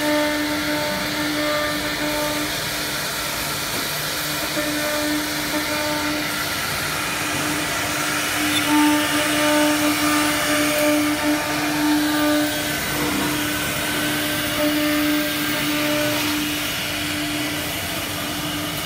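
A CNC router's spindle running with a steady whine that dips briefly now and then, over a steady rushing noise of factory machinery.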